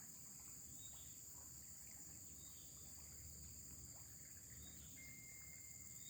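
Quiet riverside ambience: a faint, steady, high-pitched chorus of crickets or other insects, with a thin tone joining in about five seconds in.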